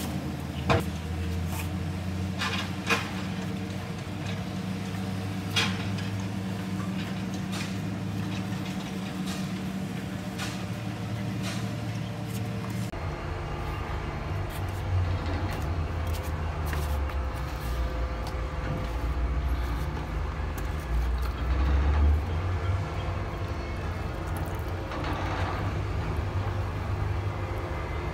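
A steady low mechanical hum, like a motor or engine running, that shifts lower about halfway through. A few sharp clicks sound in the first six seconds.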